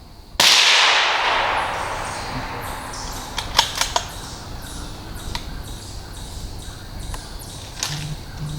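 A single gunshot about half a second in, its report echoing and dying away through the woods over two or three seconds, followed a few seconds later by a few sharp clicks.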